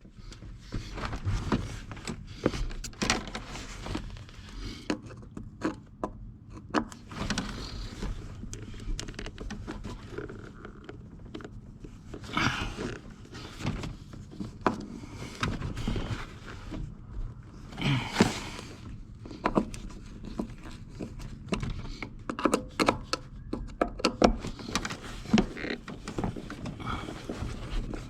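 Hands and tools working on an old pickup's floor-mounted dimmer switch: irregular clicks, knocks and scrapes, with two louder rustling swishes midway.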